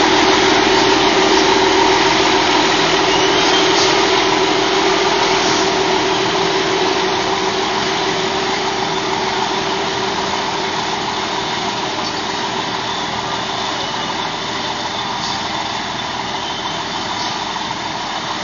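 Concrete mixer truck's diesel engine running steadily at a constant pitch, growing slowly a little quieter.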